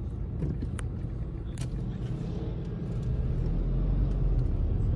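Low, steady rumble of a car's engine and road noise heard from inside its cabin, with a couple of light clicks in the first two seconds. It grows louder about three seconds in as the car pulls away from the traffic lights.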